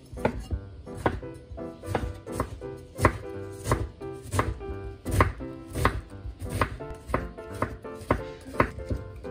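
Kitchen knife chopping on a wooden cutting board, first through tomato and then dicing half an onion. Each stroke is a sharp knock on the board, about two a second.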